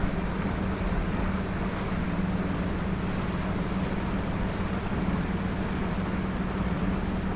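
Islander Freeport 36 sailboat's inboard engine running steadily under way, a constant low hum over a steady rush of water and wind noise.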